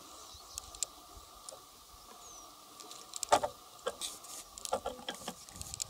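Scattered sharp clicks and light knocks, the loudest about three seconds in, over a faint steady background hum.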